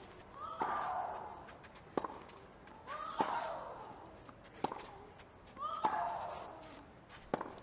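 Tennis rally: racket strikes on the ball about every second and a quarter, six shots in all. Every other shot comes with a loud, rising grunt from the player hitting it.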